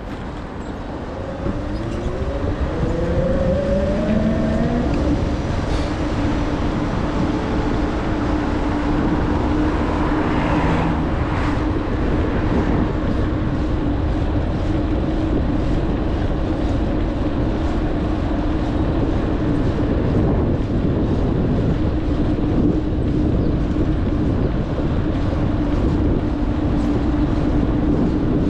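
Fixed-gear bicycle riding along a city street: steady road and wind noise on the camera, with a hum that rises in pitch over the first few seconds as the bike picks up speed, then holds steady.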